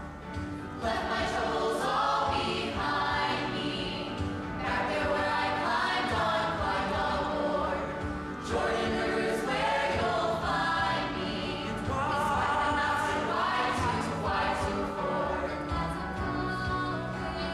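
A choir singing with instrumental accompaniment.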